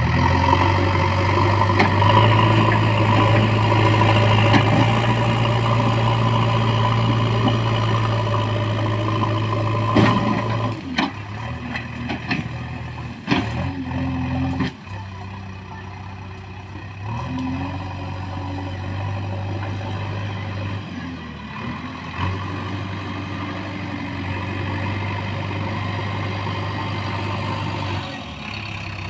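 JCB 4DX backhoe loader's diesel engine running while the machine works. It runs steadily at higher revs for about the first ten seconds, then drops lower, with a few sharp knocks in the middle stretch, and carries on at lower revs with small rises and falls in pitch.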